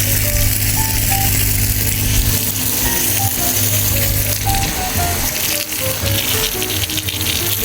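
Background music, a melody of short notes hopping from pitch to pitch, over a continuous steady hiss.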